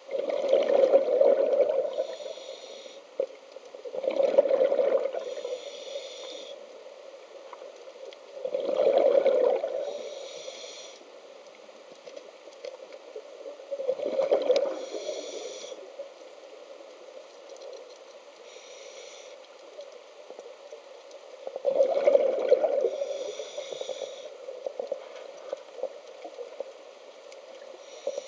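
Scuba diver breathing through a regulator underwater: five bursts of exhaled bubbles, each rumbling and gurgling for a second or two, with a quieter hiss of inhalation between them.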